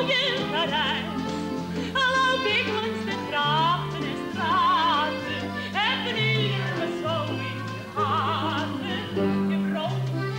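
A woman singing a stage song in an operetta-like style with wide vibrato, over a light band accompaniment with a bass line that changes note about once a second.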